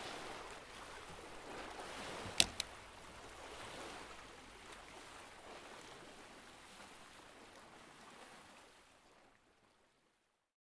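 Faint, even wash of water-like ambient noise, slowly fading and then cutting to silence near the end, with two sharp clicks in quick succession a couple of seconds in.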